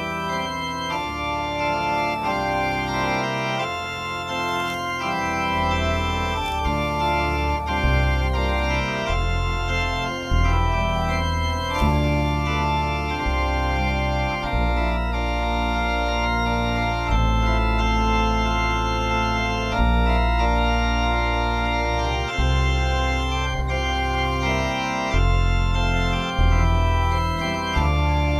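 Organ music playing sustained chords over long, held bass notes that change every couple of seconds.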